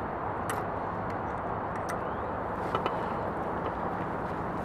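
Steady rumble of distant motorway traffic, with a few light metal clicks from the hook of dial weighing scales and the weigh sling's straps being clipped on: once about half a second in and twice in quick succession near the middle.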